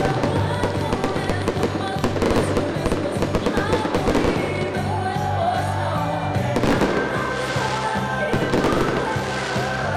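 Fireworks cracking and popping in irregular bursts over loud music with a stepping bass line.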